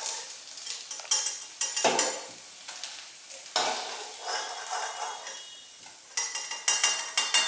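Lauki kofta balls frying in hot oil, a steady sizzle, while a metal spoon stirs them and scrapes and clinks against the pan in several strokes, busiest near the end.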